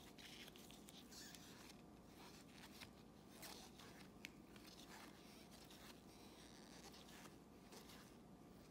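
Faint sliding and light ticking of glossy trading cards handled one at a time in a stack, over a low steady room hum.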